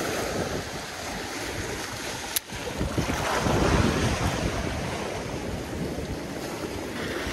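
Small waves washing in over rocks and shallows, with strong wind buffeting the microphone. One wash swells louder a little past the middle, and a single sharp click comes about two and a half seconds in.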